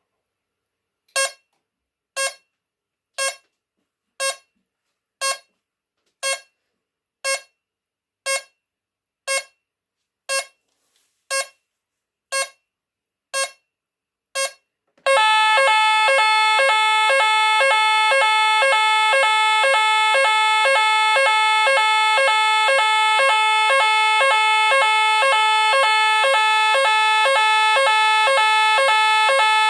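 Nugelec STI type 4 fire alarm panel (PAJ 31216D0, 2002) first sounds short beeps once a second, typical of its delay (tempo) countdown. About halfway through it switches to the loud, continuous French NF S 32-001 evacuation tone, a fast repeating two-note pattern.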